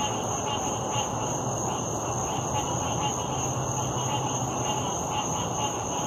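Chorus of frogs calling at a lake, many overlapping calls forming a steady, dense sound with repeated short calls standing out, and a steady high-pitched insect trill running above it.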